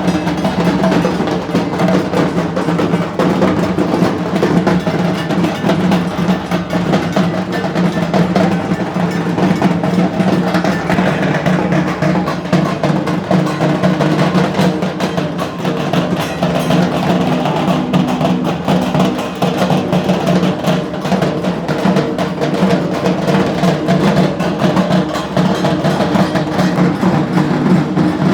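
Several dhaks, the large Bengali barrel drums, played together with sticks in a dense, unbroken beat.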